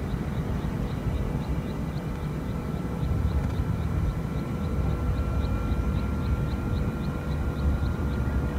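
Outdoor ambience at a pond: a steady low rumble like wind on the microphone or distant traffic, with a thin high chirp repeating about three times a second.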